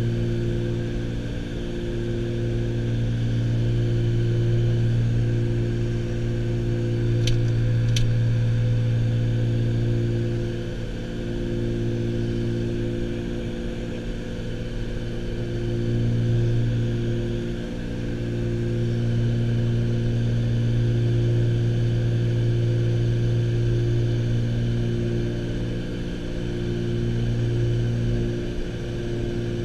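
Piper Aerostar's twin piston engines and propellers droning steadily inside the cockpit on approach, the drone slowly swelling and fading every few seconds. Two brief clicks about seven seconds in.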